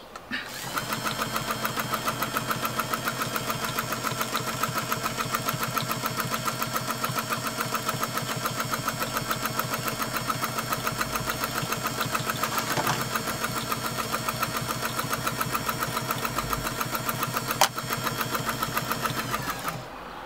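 Bernina 117-K sewing machine sewing at a steady speed: motor hum under a fast, even clatter of the needle mechanism, starting about half a second in and stopping just before the end. One sharp click, the loudest sound, comes shortly before it stops.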